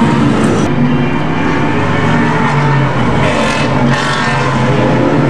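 Rolex Series sports car engines running at racing speed on the circuit, loud and steady, with several cars heard together and one swelling louder about three seconds in as it passes.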